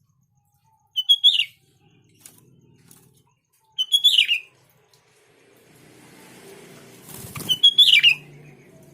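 Sooty-headed bulbul (kutilang) giving three short chirping calls a few seconds apart, each a quick cluster of notes that drops in pitch at the end. A rustling noise builds up before the third call, with a loud scratchy burst just before it.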